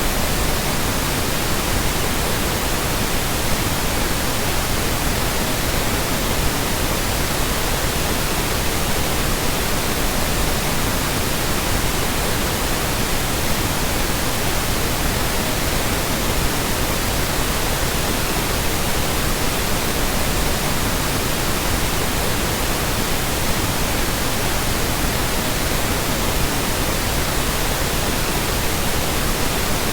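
Generated pink noise: a steady, even hiss spread across the whole range of pitch, unchanging throughout.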